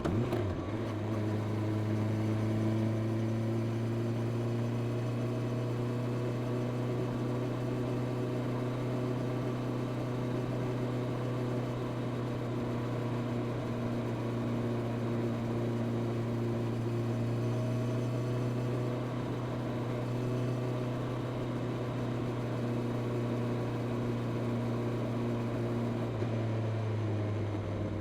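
Honda CB650R's inline-four engine through its stock exhaust, running at a steady cruising speed with an even drone. The pitch shifts briefly right at the start, then holds nearly constant.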